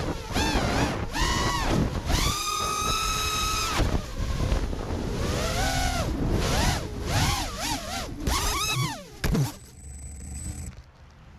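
The FPV quadcopter's four brushless motors (DYS 2205 2300KV) with 5-inch nylon props whine, the pitch rising and falling quickly as the throttle is worked, with a long high full-throttle whine a couple of seconds in. About nine seconds in comes a sharp knock, and after it the motor whine stops.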